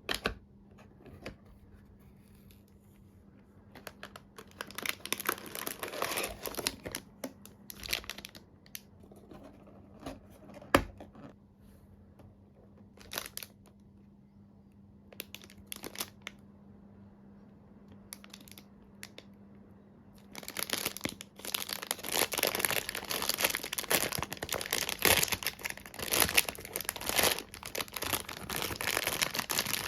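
Speedcube packaging being handled and torn open: scattered crinkling and rustling with a sharp click about eleven seconds in, then steady continuous crinkling from about twenty seconds in.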